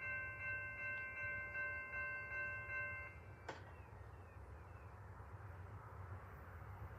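Railroad bell ringing with even strokes about twice a second, then stopping about three seconds in, followed by a single click and a faint low rumble.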